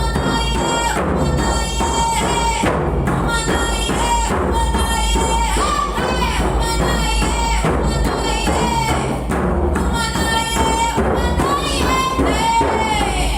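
Music: steady drumming with a high melodic line running over it.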